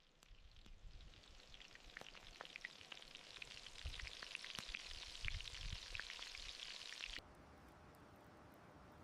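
Food frying in hot oil: a sizzle that builds over the first few seconds, full of small crackling pops, then stops abruptly about seven seconds in.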